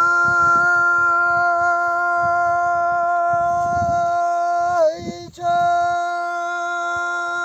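An elderly man singing a Pahari folk dohe unaccompanied, holding a long high note steady for almost five seconds, breaking off briefly, then holding another long note.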